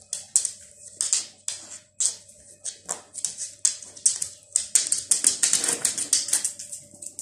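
A dog's claws clicking and scrabbling on a hard floor as she slips at a doorway, with a dense flurry of scrabbling about five seconds in.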